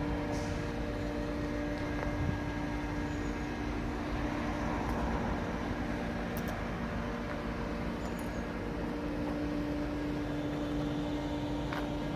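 Electric machine polisher running steadily: a constant motor hum over a steady hiss, with a few faint ticks.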